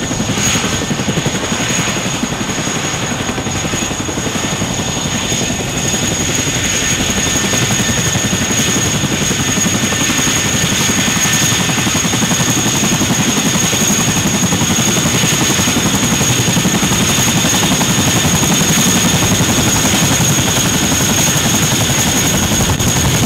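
RAF Boeing Chinook tandem-rotor helicopter running on the ground, both rotors turning, a continuous loud rotor and engine noise with a steady high turbine whine over it, growing a little louder after about six seconds.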